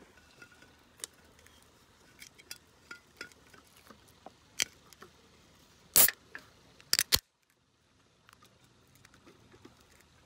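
Sapporo beer can's pull tab opened: light ticks of fingers on the aluminium can, then a short sharp crack as the seal breaks about six seconds in, followed by three quick metallic clicks a second later.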